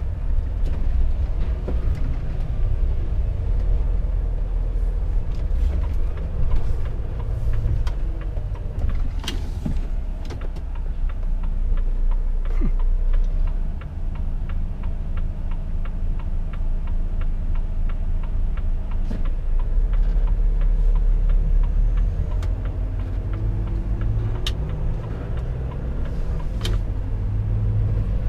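Volvo FH 460 truck's 13-litre six-cylinder diesel running on the road, a steady low rumble with road noise, rising and falling a little, with a few sharp clicks.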